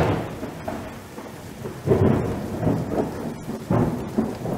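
Sound effects of an animated logo intro: three deep rumbling booms about two seconds apart, each fading out, over a steady hiss like rain.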